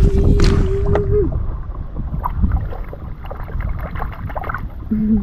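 Low rumble of wind on the microphone over shallow floodwater running across the ground, with a brief steady tone in the first second. Light splashing near the end as a hand grabs a crab in the water.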